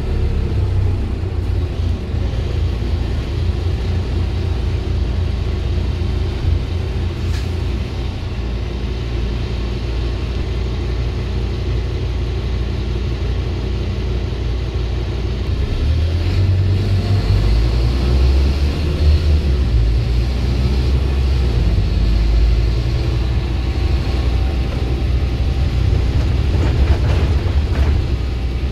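Scania single-deck bus heard from inside the passenger saloon while under way: a steady low engine and drivetrain rumble. The engine note drops at the very start, then pulls harder from about halfway, with a faint high whine for several seconds.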